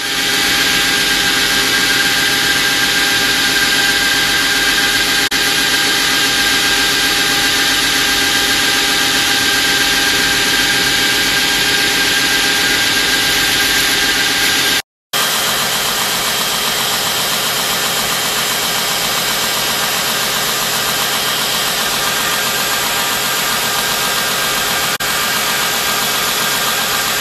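Belt grinder running, with a steel knife blade held in a bevel jig ground against the moving belt: a steady hiss of abrasive on steel over the machine's whine. The sound drops out for an instant about halfway, then carries on as a steady grinding hiss.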